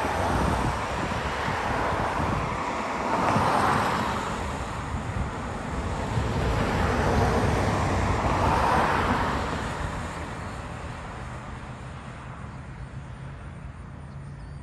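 Jet airliner in flight, a steady roar with wind buffeting the microphone. It swells twice and fades over the last few seconds.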